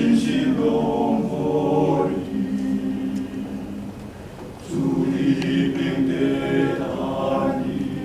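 Male vocal ensemble singing a hymn in Taiwanese Hokkien, unaccompanied, in close harmony with held chords. It drops softer a little over two seconds in and swells back louder just before five seconds.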